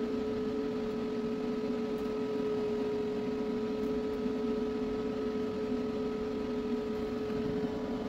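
Small electric fan motor running inside a homemade bucket air cooler: a constant hum with one clear steady tone.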